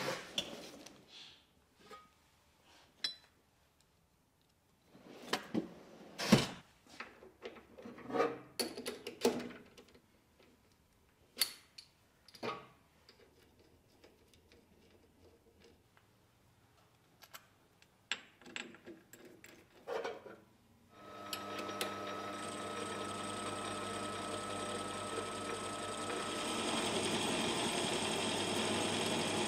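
Scattered metallic clicks and knocks of a workpiece and chuck jaws being handled on a metal lathe. About two-thirds of the way in the lathe starts and runs steadily with a faint whine, then gets louder near the end as the tool cuts the face of the spinning metal disc.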